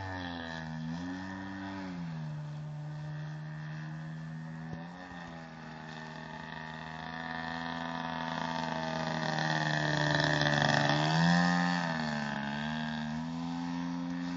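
DLE 55cc single-cylinder two-stroke petrol engine of a 2.2 m Sbach 342 radio-controlled aerobatic model plane in flight, its note rising and falling with the throttle. It is loudest about ten to eleven seconds in as the plane comes closer, the pitch dropping as it passes by.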